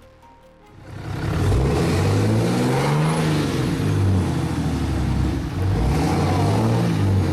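A motor vehicle engine running and revving, starting about a second in, its pitch rising and falling over a broad rushing noise.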